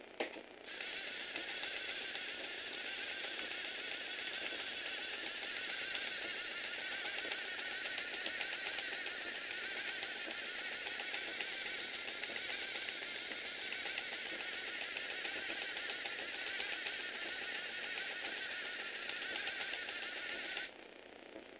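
Lego Technic 8051 motorcycle's electric motor driving its plastic gear train and model engine, a fast, even clatter. It starts just after a click about half a second in and cuts off suddenly near the end.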